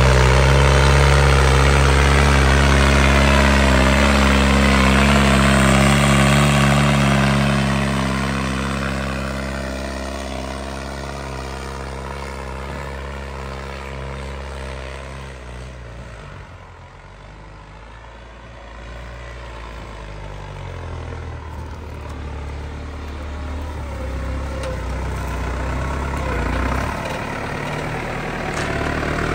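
Case IH tractor's diesel engine running steadily while pulling a reversible mounted plough. It is loud at first, fades away to its faintest a little past the middle, then grows louder again near the end as the tractor comes back close.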